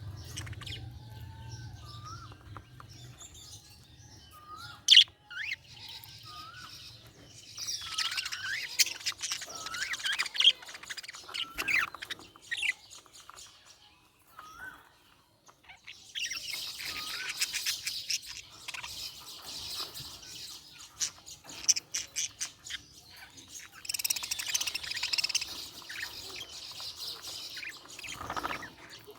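Budgerigars chirping and warbling: short separate chirps, then dense chattering bursts of warble about eight, sixteen and twenty-four seconds in.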